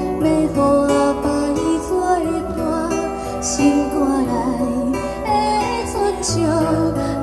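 A girl singing a Taiwanese Hokkien song into a handheld microphone over guitar accompaniment, amplified through a stage sound system.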